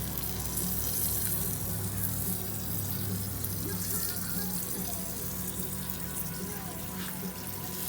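Melted butter sizzling on a hot grill as buttered ears of corn are mopped, a steady hiss.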